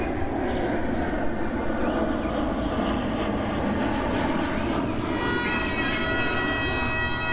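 Jet airliner flying low overhead, its engines making a steady rumble. About five seconds in, bagpipes start playing over it.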